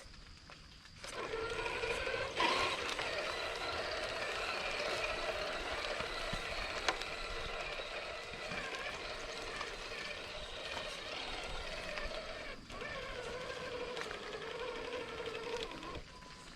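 Traxxas TRX-4 Sport RC crawler's electric motor and geared drivetrain whining as the truck drives, with the pitch wavering slightly with throttle. It starts about a second in, breaks off briefly once, and stops near the end.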